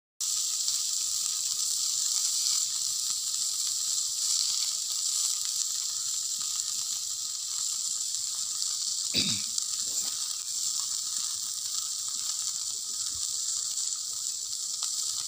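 Masala-coated whole fish frying on a flat iron griddle over a wood fire, sizzling with a steady high hiss. A short falling sound about nine seconds in.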